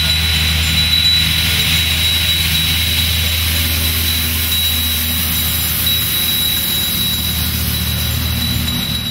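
Steady low mechanical drone under a loud, even hiss, with a thin high whine held throughout; no breaks or changes.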